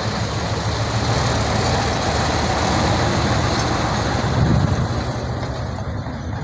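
Heavy tandem-axle diesel dump truck driving past close by, its engine running loud and steady, loudest about four and a half seconds in as it goes by.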